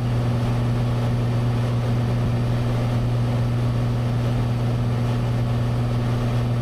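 Cessna 182's six-cylinder piston engine and propeller droning steadily in cruise flight, heard inside the cabin as an even low hum with no change in pitch.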